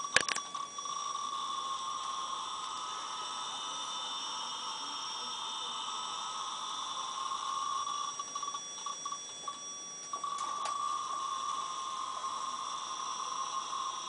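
Piezo speaker buzzing with a steady tone near 1 kHz, driven directly by a thermal sigma-delta accelerometer's output bitstream. The buzz is the modulator's quantization noise piling up at a few frequencies because its clock frequency is too low. The tone breaks up and thins for about a second around nine seconds in, and a few light clicks from handling the board come at the start and about ten seconds in.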